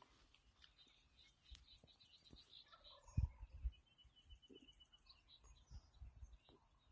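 Faint gobbling of an eastern wild turkey, a rapid rattling call that drops in pitch, followed by a quicker even trill. One sharp low thump about three seconds in.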